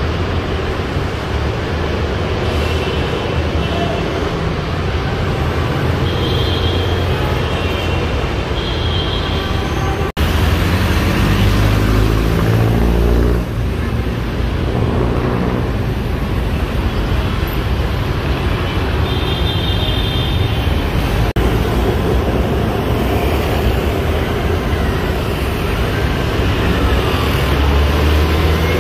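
City street traffic: a steady rumble of passing cars and other motor vehicles, with a louder engine passing close about ten seconds in.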